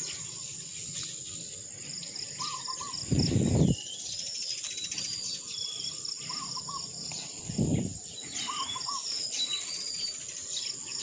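Birds calling in the open: one repeats a short three-note call about every two seconds among higher chirps, over a steady high insect drone. Twice, about three and seven and a half seconds in, a brief low thud rises above them.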